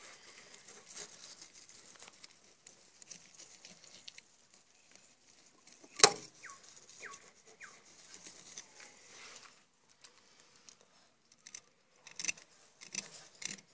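Filleting knife cutting along the bones of a snapper on a plastic cutting board: faint scattered cutting noises, with one sharp knock about six seconds in and a few clicks near the end.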